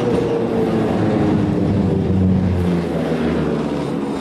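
A vehicle's motor running, a hum of several steady tones that drift slowly in pitch over a rumble.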